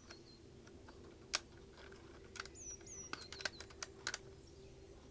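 Faint, irregular plastic clicks and taps, about a dozen, as the nosepiece of a Makita DFR551 auto-feed screwdriver is handled and reassembled after a bit change.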